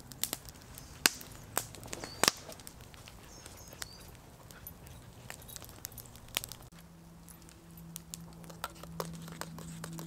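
Wood campfire crackling, with sharp pops and snaps, strongest in the first two or three seconds, under a metal mug heating on a wire grill. Near the end come lighter clicks of a spoon stirring in a metal camping mug.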